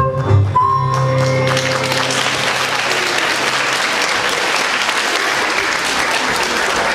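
Music ends on a held final note, and an audience breaks into steady applause about a second and a half in.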